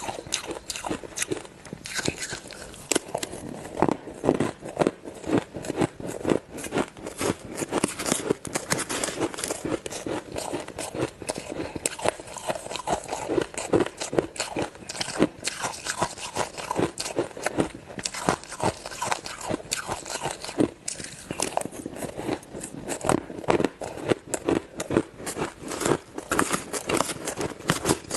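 Ice being bitten and chewed close to the microphone: a continuous run of sharp, irregular crunches and cracks.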